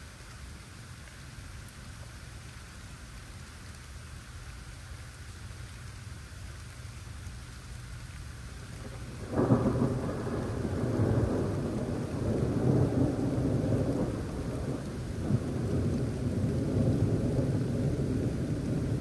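Steady rain falling, then about halfway through a sudden loud thunderclap breaks in and keeps rumbling in rolling waves.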